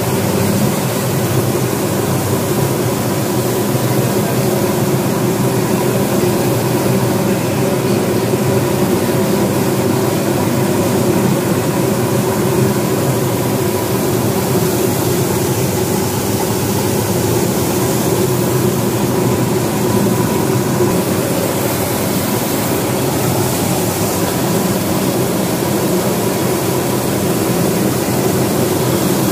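Impulse (Pelton wheel) turbine test rig running, its nozzle jet driving the runner: a loud, steady machine drone with a low hum and a hiss of water spray.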